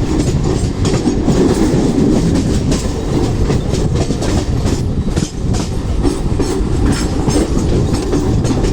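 Mumbai suburban electric local train running steadily, a loud rumble with the wheels clicking irregularly over rail joints.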